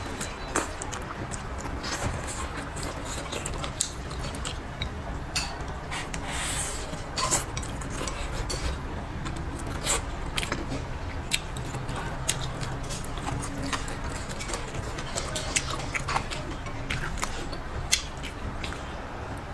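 A person eating soft eggplant: slurping and chewing, with many short sharp clicks and smacks scattered throughout.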